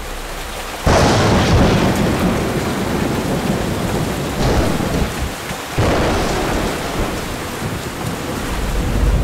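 Thunderstorm: steady rain with two sudden claps of thunder, one about a second in and another near the six-second mark, each rumbling away slowly.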